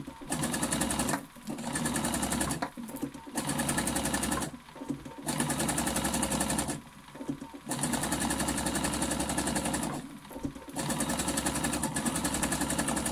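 Electronic sewing machine stitching in about six short runs of one to two seconds, stopping briefly between them, as a coil of fabric strips is fed under the needle.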